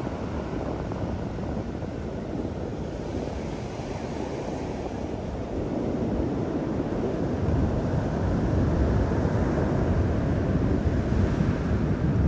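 Surf washing up over a wet pebble beach, with wind rumbling on the microphone. The wash grows louder about halfway through.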